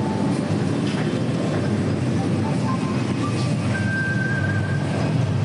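Background music: a short stepping melody over a dense, steady rumbling bed of sound.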